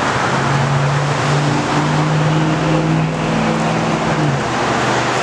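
Steady road and wind noise of a moving car heard from inside the cabin, with a low engine drone that shifts pitch a couple of times and drops away about four seconds in.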